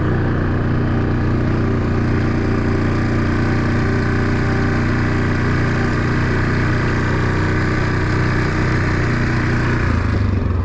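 A small vehicle engine running steadily at an even speed, its note changing about ten seconds in.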